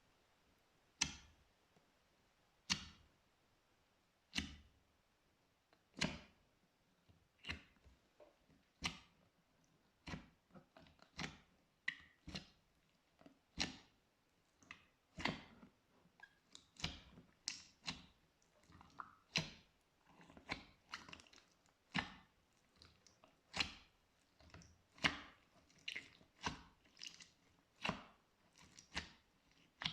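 Slime being pressed and squished, giving short sharp pops and crackles: at first one about every second and a half, then quicker and more irregular from about ten seconds in.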